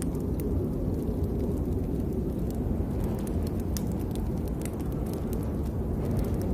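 Rain falling, heard as a steady low rumbling wash with scattered sharp drop ticks.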